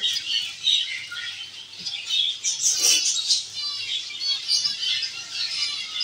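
Zebra finches calling with many short, high chirps, including a quick run of repeated notes around the middle.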